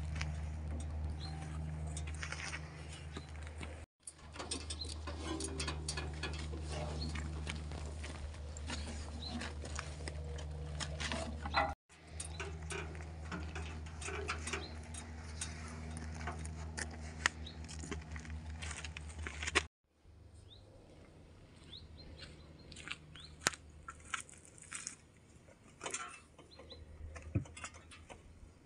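Logs knocking and rope rustling as firewood is stacked and tied down on an ATV trailer, over a steady low engine idle. About two-thirds of the way in the hum drops away, leaving quieter scattered knocks.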